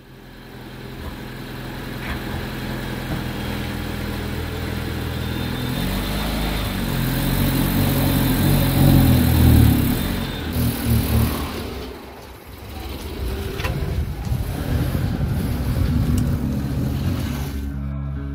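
Mitsubishi Lancer's four-cylinder engine running and being revved. It swells to its loudest around eight to ten seconds in, drops back sharply near twelve seconds, then picks up and runs steadily again.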